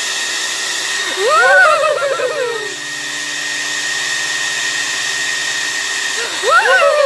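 A loud, steady whirring hiss like a small appliance running, with two drawn-out high wailing cries, each rising then falling, about a second in and again near the end.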